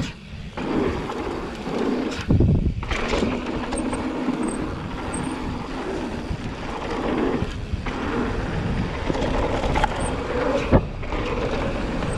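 Mountain bike riding fast down a dirt trail: a steady rumble of knobby tyres on dirt and rushing air, with the bike rattling. Sharp knocks from bumps stand out about two seconds in and again near the end.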